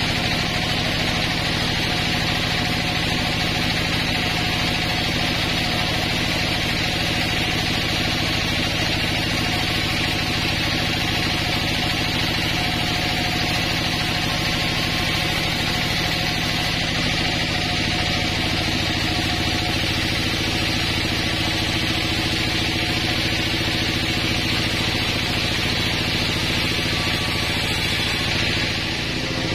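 Sawmill band saw running steadily as it rips a long pine board, a continuous hiss of blade through wood over the hum of the mill's motor.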